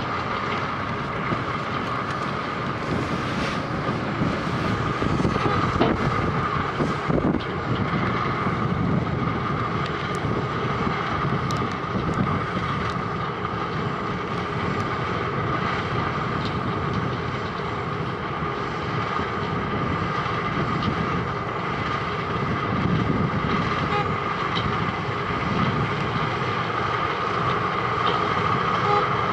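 Wirtgen W210i cold milling machine working: a steady machine rumble with a constant high whine over it.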